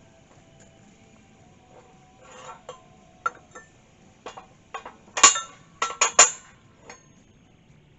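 Steel plates and a hydraulic cylinder rod clinking and clanking against the steel bed of a Harbor Freight shop press as they are set in place. There are a few scattered metal knocks, then a louder cluster of about four about five to six seconds in.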